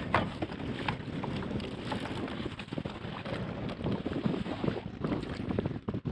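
Wind buffeting the microphone over water lapping against a fishing kayak's hull, with many short knocks and splashes scattered through.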